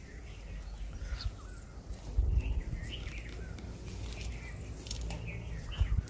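Small birds chirping now and then over a low rumble of wind on the microphone, which swells into a heavier gust about two seconds in.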